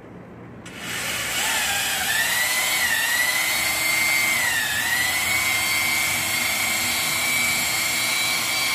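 Makita cordless drill starting about a second in and running continuously at high speed, its whine dipping in pitch twice under load, as it drives a telescopic lift that raises an air-conditioning outdoor unit.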